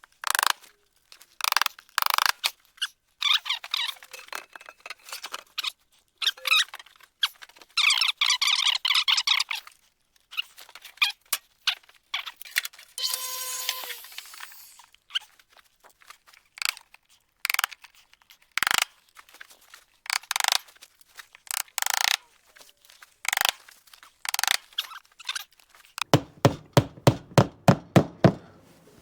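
Wood trim being fitted by hand, with scattered scraping and squeaky rubbing of wood on wood. Near the end a hammer drives a nail home with a quick run of blows, about four or five a second.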